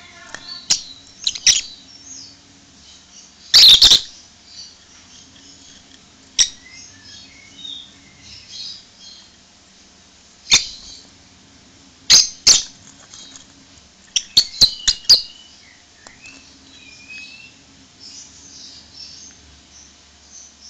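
Yellow lovebird feeding at a plastic seed dish: sharp clicks of its beak on seeds and dish, some in quick runs, over faint soft chirps. One louder noisy half-second burst about three and a half seconds in.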